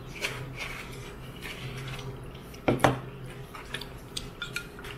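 Disposable chopsticks and plastic tableware clicking and tapping against plastic food containers. There is a louder double knock a little past halfway and a few light ticks near the end.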